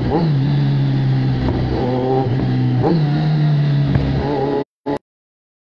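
Kawasaki Z1000's inline-four engine through an SC-Project aftermarket exhaust, running on the move. Its pitch steps and slides up and down as the throttle is worked, with a jump near the start and another about three seconds in. The sound cuts out completely for about a second near the end.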